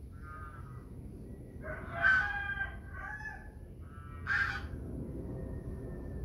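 A bird calling in several short calls, the loudest about two seconds in and another loud one a little after four seconds.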